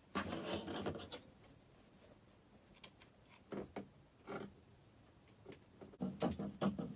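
Scissors snipping through printed fabric in a few separate cuts, with the fabric rustling as it is handled.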